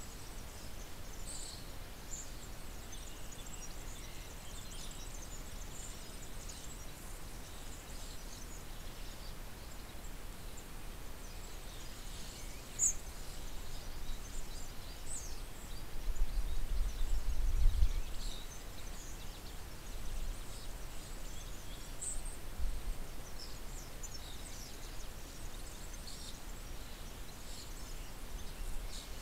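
Garden ambience with scattered short, high bird chirps and calls. A low rumble swells for about two seconds midway, with a brief low thump a few seconds later.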